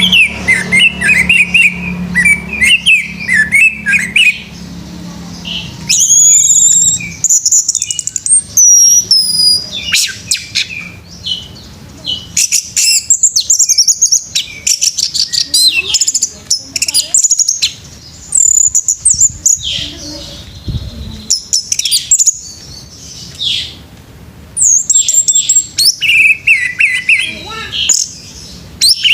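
Orange-headed thrush (anis merah) in intense full song: a fast, varied run of chirps, trills and high whistled phrases, delivered in bursts with short pauses.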